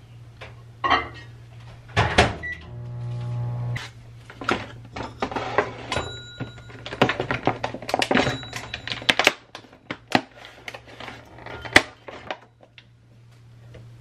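Microwave oven being used to heat a bottle of hot fudge: knocks and clicks of the bottle and the door, a short electric hum about three seconds in, and a few short electronic beeps around the middle.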